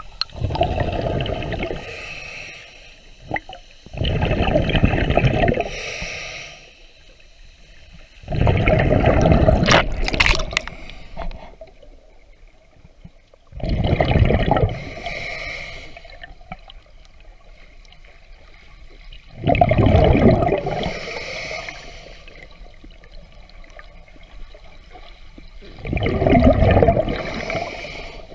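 Underwater breathing of a diver on a regulator: each exhalation sends out a gurgling rush of bubbles, repeating about every five to six seconds, six breaths in all.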